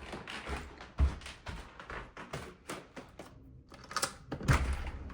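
Irregular clicks, knocks and rustling of someone moving about with a handheld camera, with two heavier thuds, one about a second in and one near the end.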